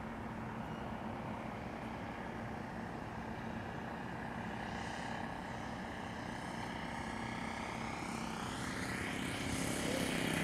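Radio-controlled model airplane's motor and propeller running steadily in flight, growing louder as the plane comes in low toward the ground near the end.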